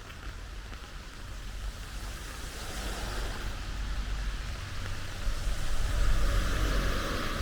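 Steady rain, with the hiss of a vehicle's tyres on a wet road swelling up as it passes, loudest near the end.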